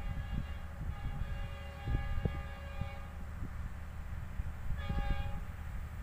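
Diesel locomotive horn of an approaching express train: one long blast over the first three seconds, then a short second blast about five seconds in, over a low steady rumble.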